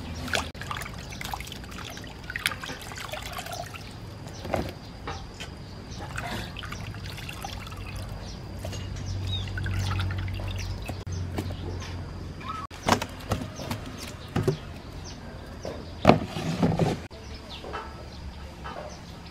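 Water sloshing and splashing in a stainless-steel bowl as small fish are dropped in and rubbed clean by hand, with a few sharp knocks later on.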